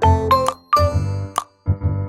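Background music: a children's-style tune of short, sharply struck notes over a bass line, with a brief gap about a second and a half in.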